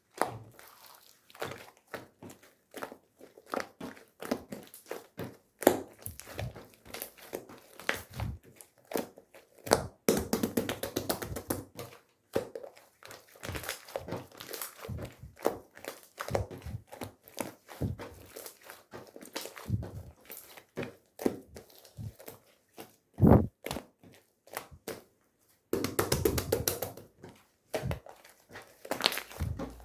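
Clear slime with strawberry charms mixed in being squished, stretched and pressed by hand, making sticky clicks and pops. Denser crackling comes about ten seconds in and again near the end, with one loud pop about 23 seconds in.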